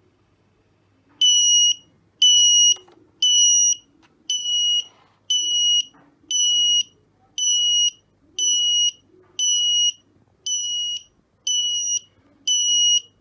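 Arduino buzzer alarm sounding a high-pitched beep about once a second, twelve beeps of roughly half a second each, starting about a second in. The gas sensor has read lighter gas above the set threshold of 200, which sets off the alarm.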